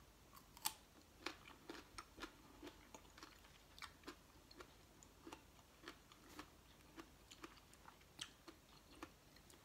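A person chewing crisp raw food close to the microphone: quiet, sharp crunches about two to three a second.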